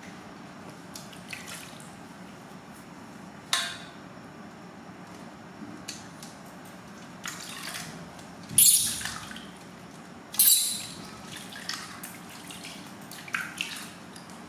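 Water splashing and dripping in a stainless steel basin as hands scoop and rub water over a newborn baby monkey, in short irregular bursts; the two loudest splashes come a little past halfway, about two seconds apart.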